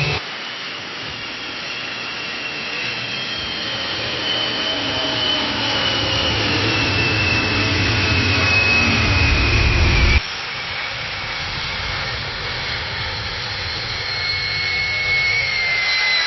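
Jet plane taking off, two recordings back to back. In the first the jet noise builds steadily, with a high whine slowly falling in pitch, until it cuts off abruptly about ten seconds in. The second is a steady jet engine noise with a whine dropping in pitch near the end.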